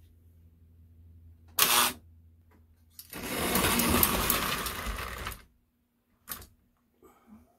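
American Flyer S gauge model train clattering over the track as it runs close by, loudest for about two seconds in the middle. There is a short sharp burst about a second and a half in and a brief one near the end, over a low steady hum.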